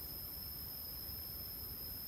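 Steady high-pitched drone of forest insects, one constant whine with a fainter hiss above it, over a low background rumble.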